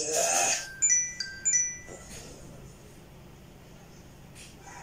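Electronic chime of a few notes stepping down in pitch, sounded twice in quick succession about a second in.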